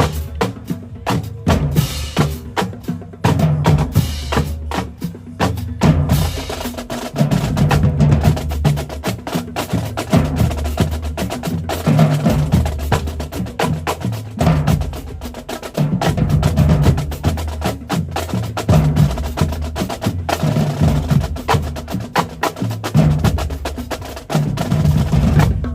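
Middle school marching drumline playing a cadence: snare drums with rapid stick strokes and rolls over bass drums hitting low notes in phrases that repeat about every two seconds.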